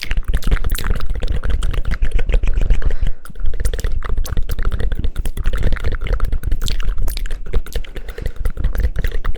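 Rapid close-mic hand clapping for ASMR, a dense run of quick sharp claps with a brief break about three seconds in.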